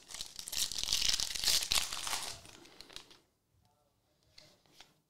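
Foil wrapper of a Topps NBL basketball card pack being torn open and crinkled in the hands, a dense crackling for about three seconds.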